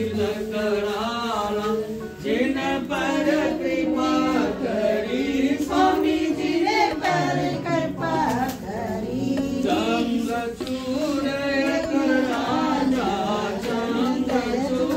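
Devotional aarti hymn sung by several voices, the melody running on over a steady held drone.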